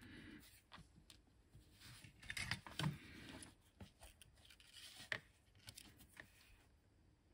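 Fingers handling a short length of rainbow ribbon cable, with soft rubbing and scraping and a few light clicks and taps as the cable is set down on a cutting mat.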